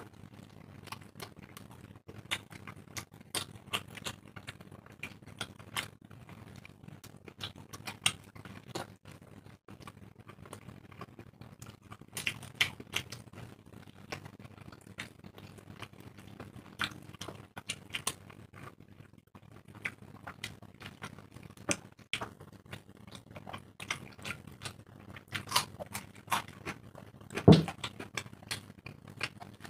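Close-up eating sounds of two people eating dry roti and chickpea ghugni with their hands: chewing and wet mouth smacks, many short irregular clicks throughout, with one louder thump near the end.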